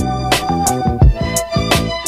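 Background music with a steady beat: drum hits under a held melody note and a bass line that steps between notes.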